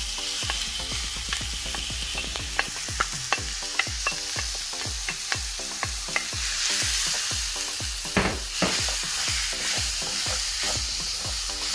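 Raw minced beef sizzling in a hot frying pan with plantains and red onions, stirred with a wooden spoon that taps and scrapes against the pan several times a second. The sizzle grows a little brighter about two-thirds of the way through.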